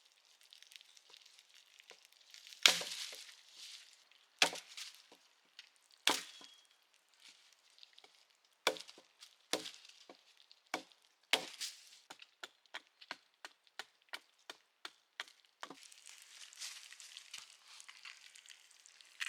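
Wood being chopped: several heavy, separate blows a second or two apart, then a quicker run of lighter strikes, about two to three a second, which stops a few seconds before the end.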